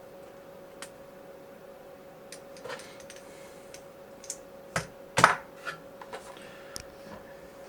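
Scattered light clicks and knocks of a small plastic toy figure and its cardboard packaging being handled, with a louder clatter about five seconds in. A faint steady hum runs underneath.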